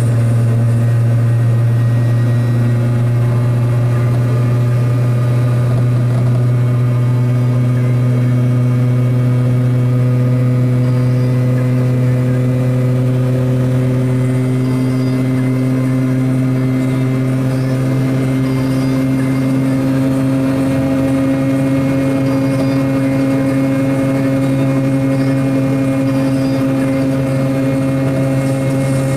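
Piaggio Ape 50's small two-stroke single-cylinder engine running steadily on the move, its note rising slightly over the stretch.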